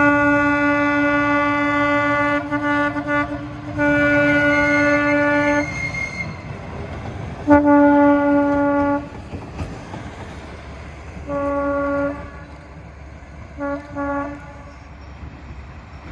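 Narrow-gauge diesel locomotive horn sounding a series of blasts over the locomotive's running engine. It opens with a long blast of about two and a half seconds, broken off by a few choppy toots. Two shorter blasts follow, then a one-second blast and two quick toots near the end, each fainter than the last.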